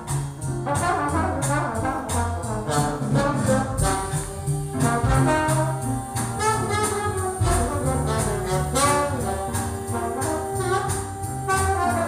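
Brass-led jazz played over a hi-fi system through a Marantz integrated amplifier and loudspeakers, with a steady beat and a moving bass line.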